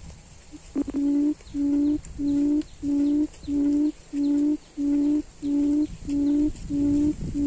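A quail calling a long run of deep, evenly spaced hoots, about twelve in a row, starting about a second in. This is the booming call used to lure wild quail to a trap.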